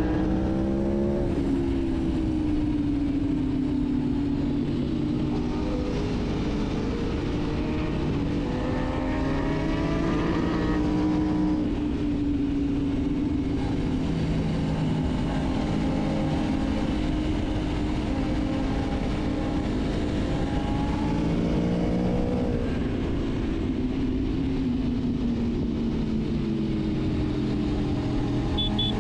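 Aprilia Tuono V4 Factory's V4 engine running at riding pace, its pitch climbing under throttle and dropping back several times as the rider accelerates and rolls off through bends. A steady rush of wind lies underneath.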